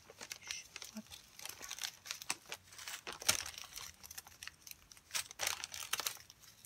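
Small plastic bags of diamond-painting drills crinkling as they are handled and sorted, in irregular bursts that are loudest about three and five and a half seconds in.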